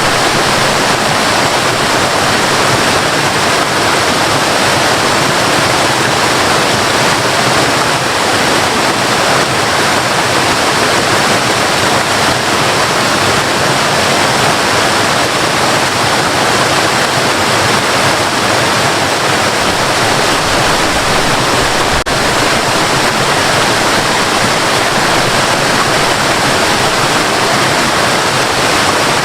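Waterfall rushing, a loud, steady, unbroken roar of falling water.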